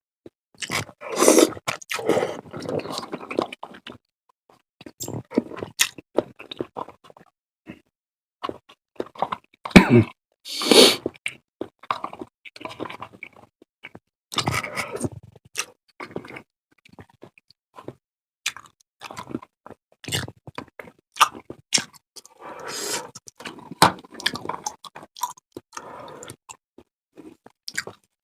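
Close-miked mukbang eating sounds: wet chewing and biting with many irregular mouth clicks and smacks, and a few denser stretches of eating noise.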